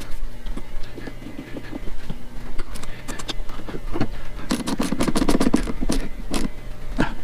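Clicks and scrapes of bolts and mounting hardware being handled and fitted, with a quick run of rattling clicks about halfway through.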